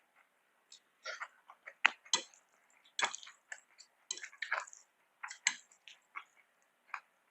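Close-miked eating: wet chewing and mouth smacks in short, irregular clicks, a few louder ones about two and three seconds in.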